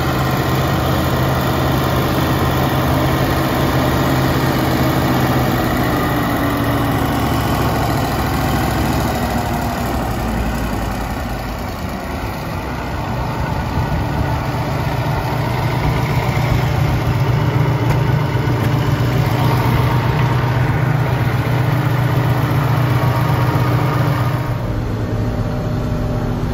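Massey Ferguson 4900's Cummins 903 V8 diesel engine running steadily as a deep drone, dipping slightly in level about twelve seconds in and sounding duller near the end.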